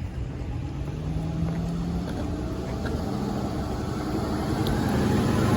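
A vehicle engine running with a steady low hum, growing louder toward the end as it draws nearer.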